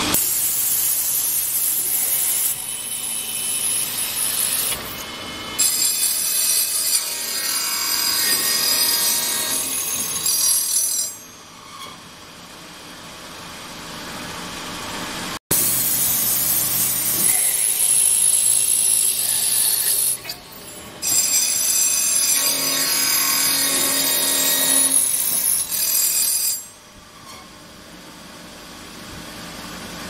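JZ-2.2 automatic mortise lock combination machine cutting brass bar stock: a loud, hissing whine of cutters in the metal with high steady tones. About eleven seconds in, and again near the end, it drops to a quieter running sound between cuts.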